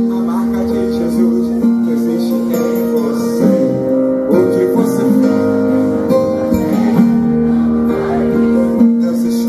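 Live gospel band playing, with strummed guitar over long held chords that change every second or so.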